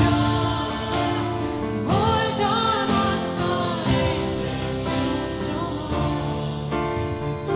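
A small band playing a Christian worship song: strummed acoustic and electric guitars and keyboard chords with a strum about once a second, and a voice singing a melody line.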